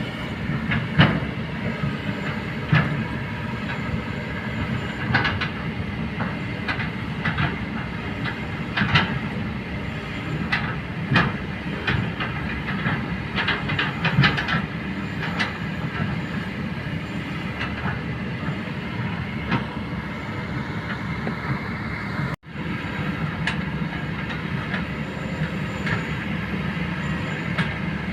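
Kobelco hydraulic excavator's diesel engine running steadily while working, with frequent sharp metallic clanks and knocks from the machine; the sound drops out for an instant about 22 seconds in.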